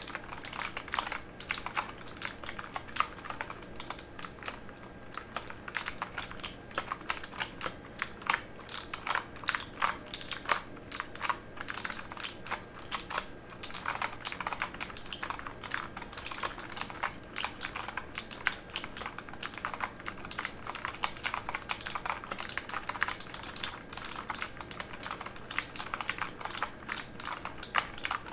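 Typing on a mechanical keyboard: a fast, uneven run of key clicks and clacks.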